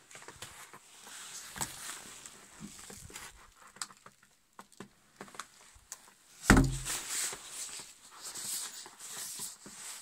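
Crunching and crackling in snow with scattered light clicks, and one heavy thump about six and a half seconds in.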